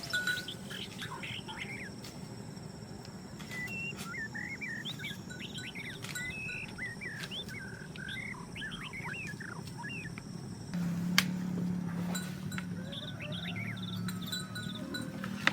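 Birds chirping and twittering in many short, quick calls, busiest in the middle, over a low steady hum that grows louder about eleven seconds in, with a few sharp clicks.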